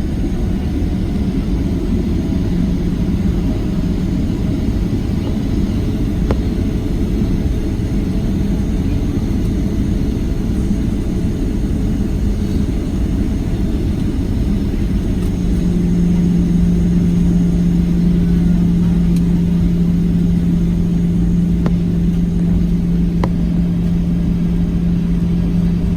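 Cabin noise of a Boeing 737-700 with its CFM56-7B engines at low power: a steady rumble with a low hum. The hum grows stronger and a little louder about fifteen seconds in.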